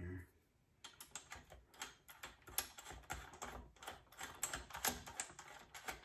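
Allen wrench being turned by hand to tighten the cap bolt on top of a stroller's front wheel fork: a faint run of small, irregular clicks and ticks, several a second.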